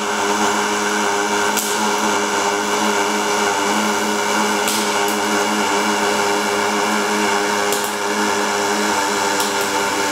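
Pulsed MIG welding arc from a Castolin XuperArc pulse-inverter welder, buzzing steadily at one even pitch over a hiss. A few sharp crackles break in about every three seconds.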